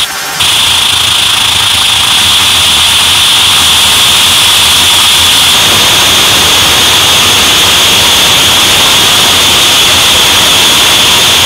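Harsh noise music (power electronics): a loud, unbroken wall of distorted noise with a shrill band high up, dipping for a split second at the very start.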